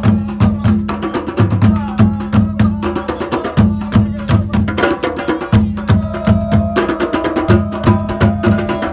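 African hand drums played together in a fast, steady rhythm: deep bass strokes repeating under many quick, sharp slaps.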